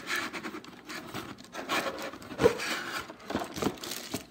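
Paper and packaging being handled: rustling and rubbing scrapes broken by a few light knocks, the loudest about two and a half seconds in.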